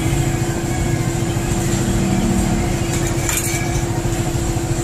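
A small engine running steadily with a constant hum and low rumble. A single light metallic clink about three and a half seconds in.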